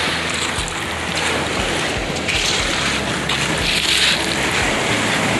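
Surf washing onto a pebble beach, a steady rush that swells louder a couple of times mid-way, with wind buffeting the microphone.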